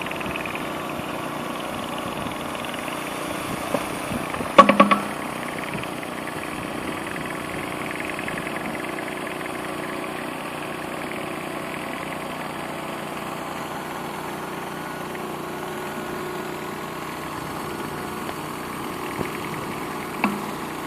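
Pressure washer running steadily, with a short cluster of loud knocks about four and a half seconds in.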